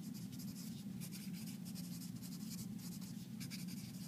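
Handwriting: a pen or marker making quick scratchy strokes, in irregular runs, over a steady low hum.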